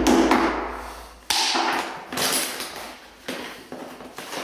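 Claw hammer and screwdriver prising protective packing off the edge of a door: a hammer strike right at the start that rings and dies away, a sharp knock about a second in, then several smaller knocks and scrapes.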